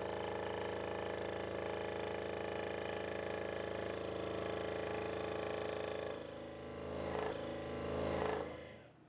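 Hawk G4 scroll saw running and cutting through 2-inch-thick black walnut: a steady, even-pitched machine hum that turns uneven about six seconds in and stops shortly before the end.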